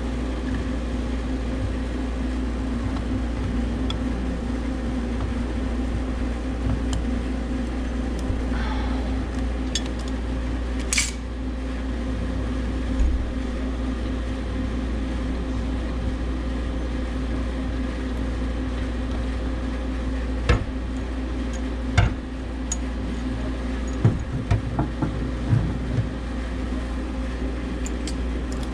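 Steady mechanical hum of running equipment, with scattered sharp metallic clinks and knocks of tools and valve parts being handled, several in quick succession near the end.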